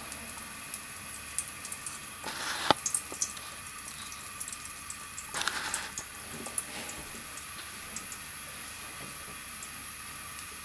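Cooking oil heating in a frying pan over a gas burner: a faint steady hiss with scattered small crackles. Two short louder spurts of sizzling come about two and a half and five and a half seconds in, the first ending in a sharp tick.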